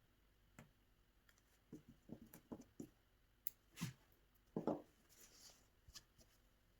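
Hand embroidery: faint, scattered taps and rustles as the needle pierces the fabric and the thread is drawn through, with a slightly louder rustle a little past the middle.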